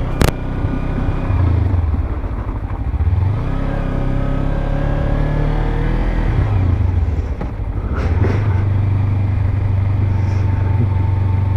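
Kawasaki Ninja 300 parallel-twin engine running as the bike rolls slowly along a gravel path, the revs rising and falling several times and then holding steady for the last few seconds. A sharp click sounds just after the start.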